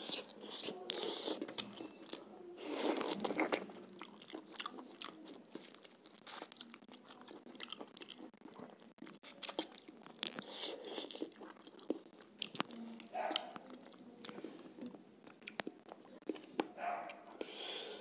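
A person chewing and biting into pieces of chicken curry, with wet crunching and many small mouth clicks and smacks. The crunching is loudest about three seconds in.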